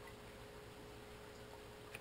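Near silence: room tone with a faint steady hum, and a small click near the end.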